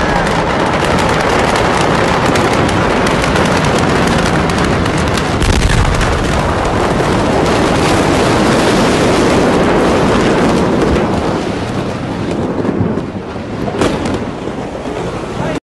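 A huge explosion heard at close range: a loud continuous roar full of crackling, with a deep thud about five seconds in, fading over the last few seconds before cutting off suddenly.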